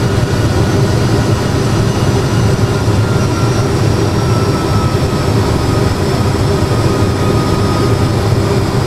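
Airbus A320 full flight simulator's cockpit sound on final approach: a steady jet-engine and airflow rumble, with a faint higher whine slowly falling in pitch.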